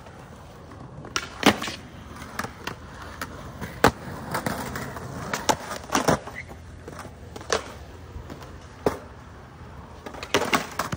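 Skateboards rolling on concrete, with many sharp clacks of boards popping and landing, the loudest about one and a half and four seconds in.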